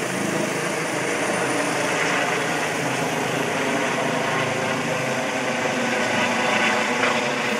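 Rescue helicopter flying overhead, its turbine and rotor blades making a steady, fast beating chop that grows a little louder near the end.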